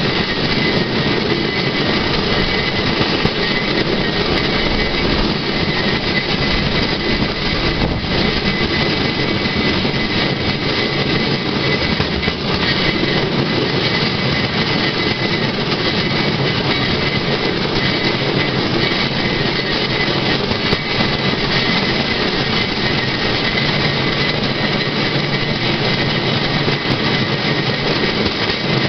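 Steel wheels of a Swedish pedal rail draisine rolling along rusty rails, a continuous rumble and rattle with a faint steady high whine.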